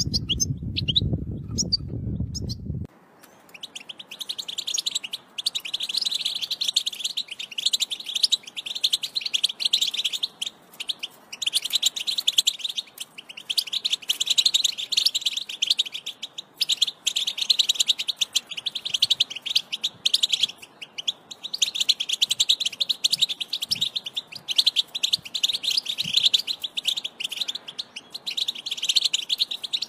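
European goldfinch song: a fast, continuous twitter of chirps and trills, broken by short pauses. For about the first three seconds a low noise lies under a few chirps, then cuts off suddenly as the song takes over.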